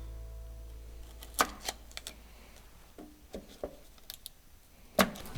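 Scattered light clicks and taps from hands working strips of blue painter's tape, poking holes through it over the hanging slots and handling the tape, with a sharper click about five seconds in.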